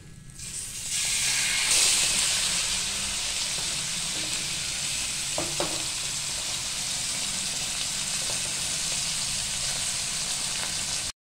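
Ribeye steak sizzling in hot melted butter in a frying pan: the sizzle swells as the meat goes in, about a second in, then holds steady. It cuts out abruptly just before the end.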